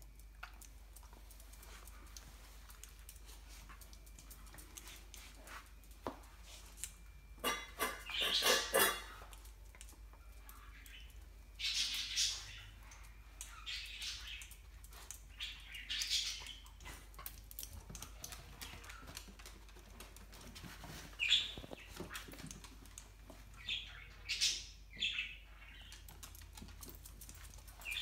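A dachshund sniffing and snuffling close to the floor in short bursts, the longest a quick run of sniffs about eight seconds in, while she noses around for food.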